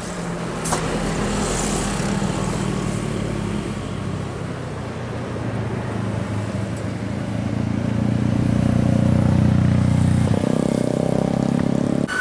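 A heavy road vehicle's engine running with a steady drone that grows louder, peaking about eight to ten seconds in. Its engine note changes shortly before the end.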